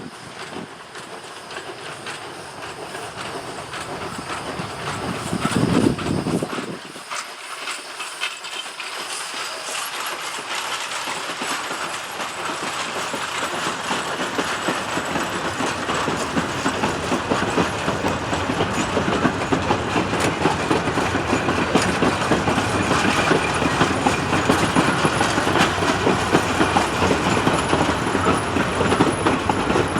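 A train running on rails, its wheels clattering over the rail joints, growing steadily louder as it comes closer or picks up speed.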